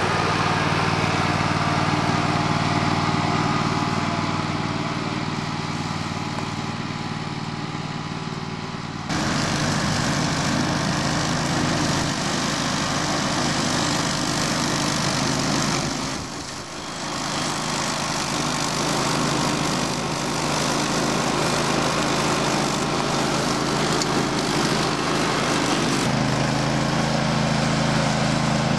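Grillo Climber 9.21 ride-on mower running steadily as it cuts tall, lush grass. The sound steps up suddenly and gets louder and hissier about nine seconds in, dips briefly around the middle, and its low engine note shifts near the end.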